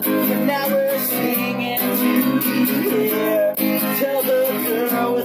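A song demo: strummed acoustic guitar with a voice singing over it.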